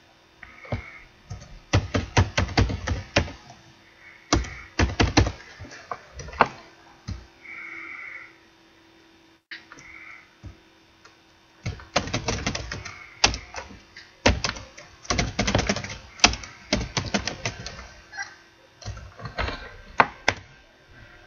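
Typing on a computer keyboard: bursts of quick keystrokes with short pauses between them.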